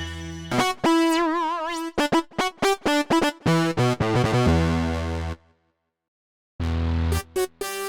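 UVI UVX670 software synthesizer playing: a held chord fades out, then a run of short staccato notes, one with a pitch wobble, and a longer low note. After about a second of silence near the end, new short notes begin.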